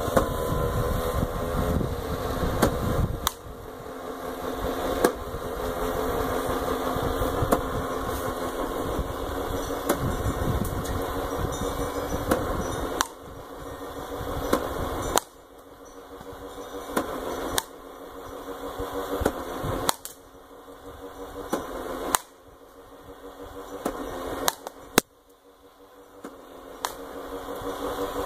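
Pitching machine's motor running with a steady hum, broken by a sharp crack about every two and a half seconds as a ball is fired through the spinning wheel or met by the bat. After each shot the motor's sound drops and climbs back as the wheel builds up speed again.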